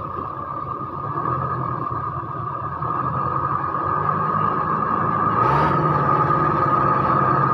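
Off-road 4x4's engine running, stuck in deep mud, getting louder from about three seconds in and revving higher about five and a half seconds in.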